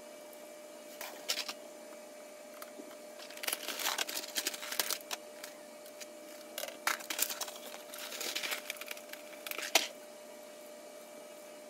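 Hands handling plastic action figures and their clear plastic packaging: scattered clicks, taps and crinkles in several clusters, with one sharp click near the end, over a faint steady hum.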